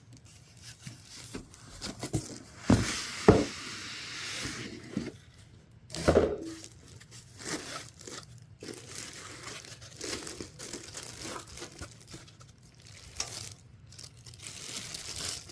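Packaging being handled and taken off a PC case: irregular crinkling and rustling with a few knocks, the loudest about three and six seconds in.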